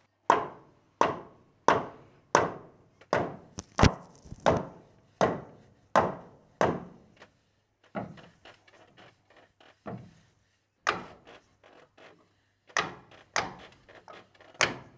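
Hammer blows driving wedges into a log's mortise to lock the log into place: a steady run of sharp knocks, about three every two seconds. Lighter, quicker taps follow around the middle, then more strikes near the end.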